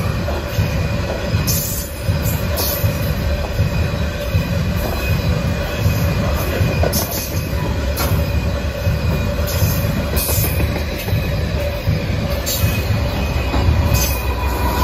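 Loaded covered hopper cars of a long freight train rolling past, a steady heavy rumble of wheels on rail with irregular clacks and a continuous high wheel squeal. Near the end the rear locomotive, a GE AC4400CW, arrives and adds a deeper engine rumble.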